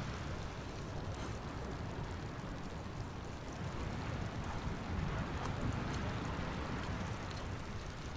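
Steady low rumbling wash of sea surf at the shore.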